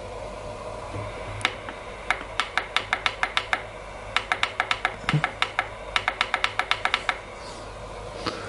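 Rapid sharp clicks in three runs of about ten each, some six a second, with short pauses between, over a low steady hum.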